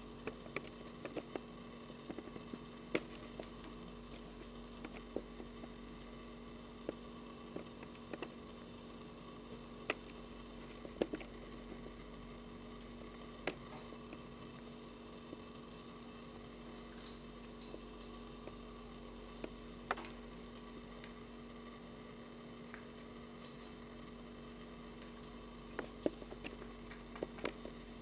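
Light, irregular clicks and taps of kittens playing with a rope, their claws catching on the rope, rugs and a wire pen, over a steady electrical hum.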